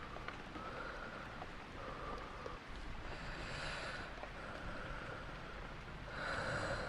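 Slow human breathing close to the microphone over steady rain, with two stronger breaths, one about three seconds in and one near the end.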